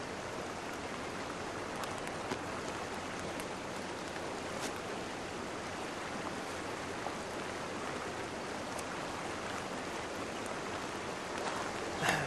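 Steady rushing of a mountain stream flowing over rocks, with a few faint ticks.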